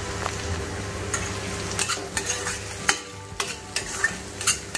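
Potato pieces frying in a kadai with a steady sizzle while being stirred. From about a second in, a utensil clicks and scrapes against the pan about ten times.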